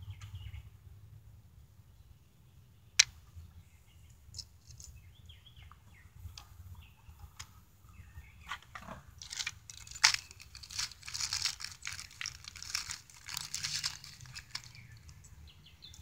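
Hand work on a new starter solenoid's small hardware: a sharp metallic click about three seconds in and scattered light clicks, then several seconds of crinkling and rustling from about nine seconds in.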